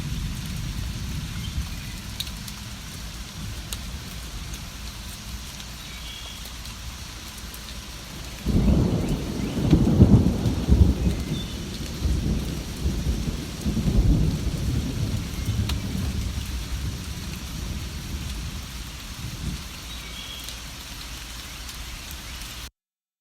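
Steady rain falling, with a roll of thunder that breaks in about eight seconds in, swells twice and fades away over about ten seconds. The sound cuts out abruptly just before the end.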